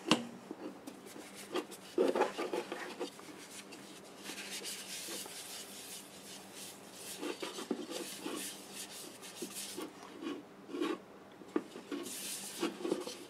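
Paper towel wiping finish into the inside of a cherry bowl, making irregular rubbing and swishing strokes, with a light knock about two seconds in.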